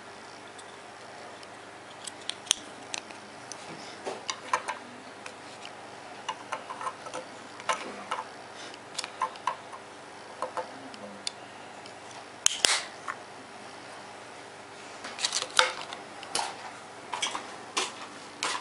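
Small objects being handled: irregular sharp clicks and taps over a steady faint hiss, the loudest about twelve seconds in and a cluster of them near the end.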